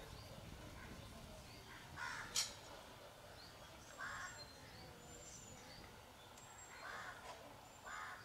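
Crows cawing, about four separate calls, with faint high-pitched chirps between them and one sharp click a little over two seconds in.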